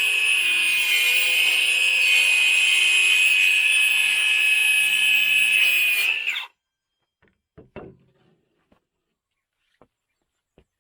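Worx WU533 cordless circular saw ripping 12 mm plywood, a loud, steady, high whine with cutting noise that stops suddenly about six seconds in. A few faint knocks follow.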